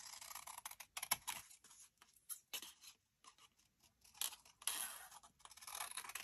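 Small paper pieces being handled: rustling and scraping, with a few light clicks and taps between.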